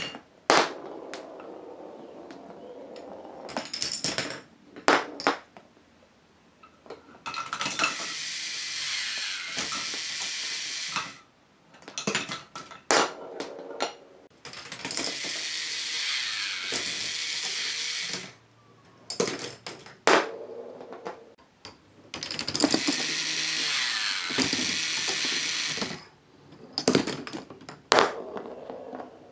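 Plastic balls running through a K'nex ball-machine path separator: sharp plastic clicks and clacks as the balls drop through the self-resetting switch, and three stretches of steady rolling, each about four seconds long.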